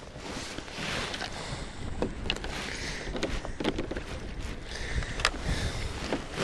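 Water splashing against a moving kayak's hull, with a scatter of short sharp splashes or knocks over a steady wind rumble on the microphone.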